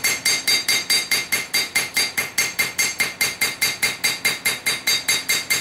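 Rapid, evenly spaced hammer blows on hot stainless steel over an anvil, about six a second, each with a bright metallic ring, as the edge of a small knife blade is forged.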